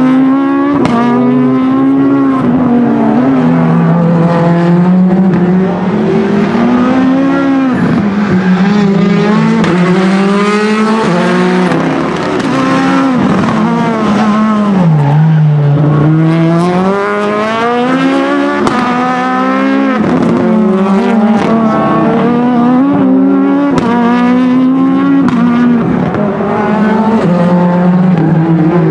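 Renault Clio Super1600 rally car's high-revving 1.6-litre four-cylinder engine, driven hard. The engine note climbs, drops and climbs again over and over as the car accelerates, shifts and brakes through the corners.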